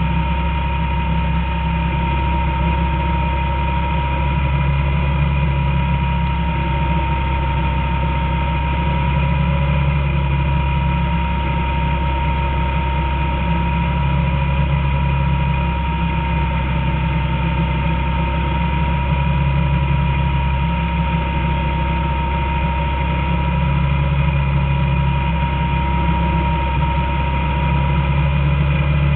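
Small open-wheel race car's engine running steadily while lapping, heard from onboard, with a steady high whine over it. The engine note swells a little every few seconds as the car goes round the oval.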